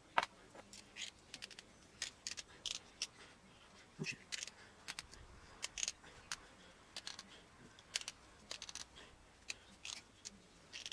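Skateboard wheel bearings being worked out of a wheel: a string of light, irregular clicks and scrapes.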